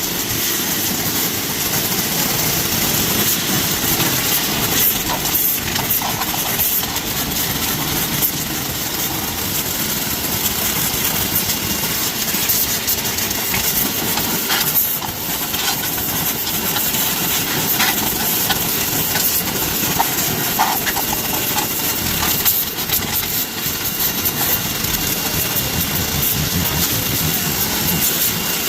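Pressure washer running steadily, its water jet hissing as it sprays down aviary wire and a water tray.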